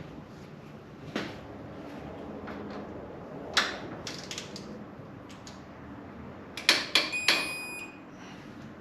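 Torque wrench tightening a Harley fork's pinch bolts to about 27 foot-pounds: scattered tool clicks and metal knocks, a louder run of clicks about seven seconds in, and a short high electronic beep as the bolt reaches torque.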